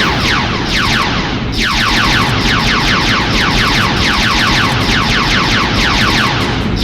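Rapid-fire laser-blaster sound effect: a fast stream of short zaps, each falling in pitch, breaking off briefly about a second and a half in and then firing on, over a low rumble.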